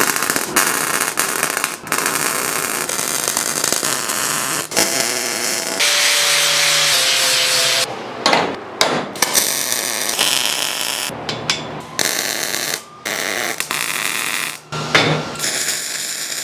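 Steel welding in a run of short clips: the welding arc crackling and hissing in stretches that start and stop abruptly, with a brief steady hum in the middle.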